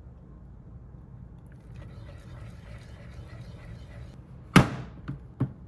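A Cuckoo rice cooker's lid snapping shut with one loud, sharp click, followed by two lighter clicks as its control-panel buttons are pressed.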